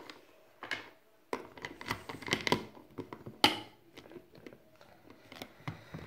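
Handling noise: irregular rustling and scraping with scattered clicks, as of hands moving over the recording device and the toys.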